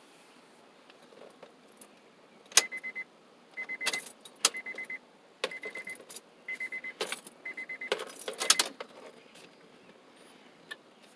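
Car warning chime beeping about once a second, six times, while keys jangle and click at the ignition.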